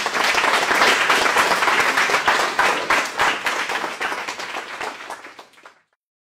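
Audience of teenage students applauding, many hands clapping at once; the applause fades out near the end.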